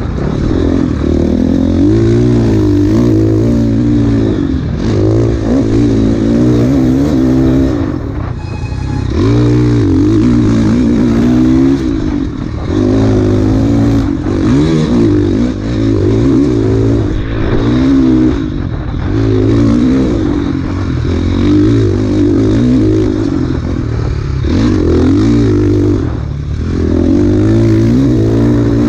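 Enduro dirt bike engine ridden hard off-road, its revs rising and falling every second or two as the throttle is opened and closed, with a brief drop off the throttle about a third of the way in.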